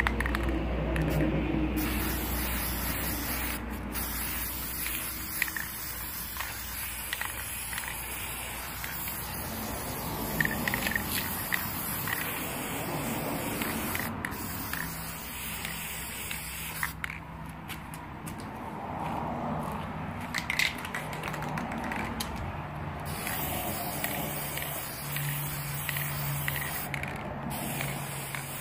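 Aerosol spray paint can hissing in long bursts of spraying, broken by several short pauses.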